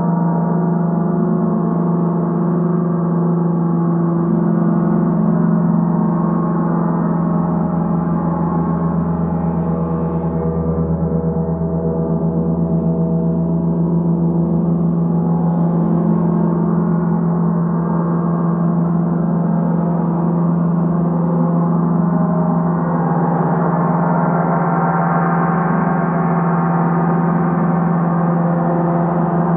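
Large gong played continuously in a three-gong set: a dense, steady wash of ringing tones over a strong low hum, the higher overtones growing brighter near the end.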